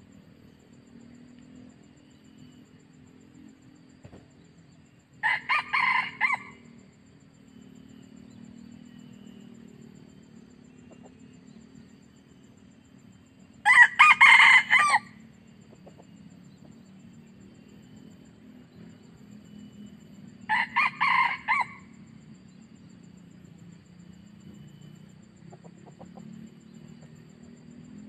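Junglefowl rooster crowing three times, each crow short and clipped, about a second long, several seconds apart, over a faint steady low hum.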